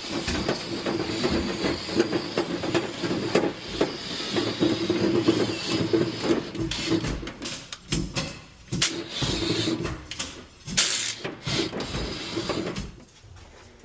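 Drill spinning a rotary dryer-vent cleaning brush on flexible rods inside the vent duct, with a steady motor hum under the brush scraping and rattling along the duct. It pauses briefly a couple of times and stops near the end as the brush works through the lint toward the outside end of the vent.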